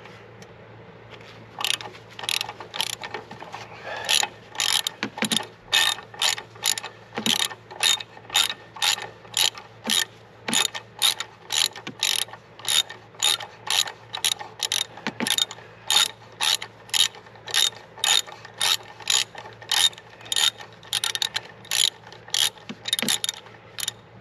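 Hand ratchet wrench clicking steadily, about twice a second, as it is swung back and forth to unscrew a bolt; the clicking starts about two seconds in.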